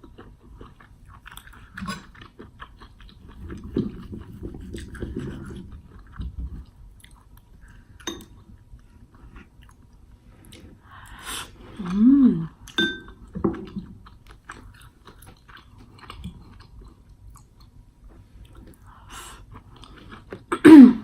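Close-miked chewing and biting of food, with soft wet clicks and crackles as a mukbang meal of corn and steak is eaten. A short pitched sound that rises and then falls comes about twelve seconds in, and a louder one just before the end.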